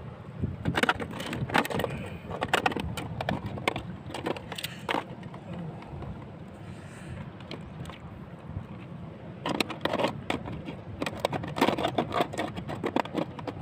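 A clear plastic bottle crackling and scraping against wet rock as it is handled, in two spells of dense sharp crackles with a lull between, over a steady low rumble.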